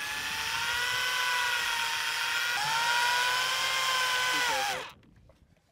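Electric fishing reel's motor whining steadily as it winds in line with a hooked fish on. The pitch dips briefly about halfway through, then falls and the motor cuts off just before five seconds in.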